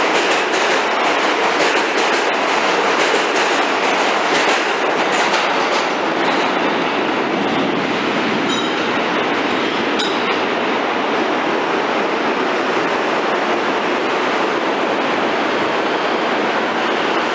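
New York City subway train running through an underground station: steady loud wheel and track noise, with clicking over the rail joints for the first few seconds. A brief high-pitched ring sounds about eight and a half seconds in.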